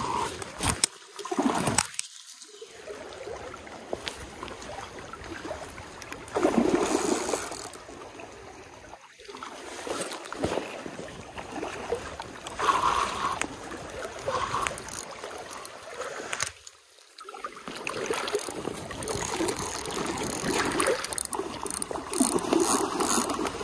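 Shallow stream water running, with irregular rustling and brushing bursts as a fleece sleeve rubs across the microphone while a spinning reel is worked.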